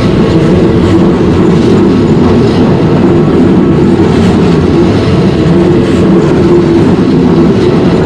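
Keikyu electric train running through a level crossing, with a loud, steady low rumble of wheels on the rails.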